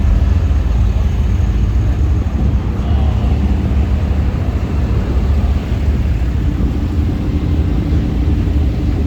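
Car engines and exhausts rumbling steadily as cars cruise a crowded street.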